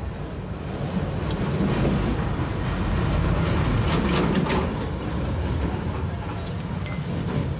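Dismantled LPG reducer parts being scrubbed by hand in a steel bowl of cleaning fluid, with a few quick metallic clinks about four seconds in, over a steady low rumble.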